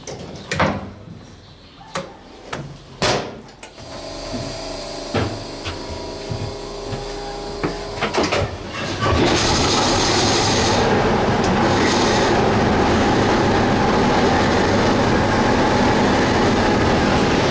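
Clicks and knocks of a diesel locomotive's hood door latches being worked, then a steady hum. About nine seconds in, the loud, steady sound of a diesel locomotive engine running, heard inside the cab.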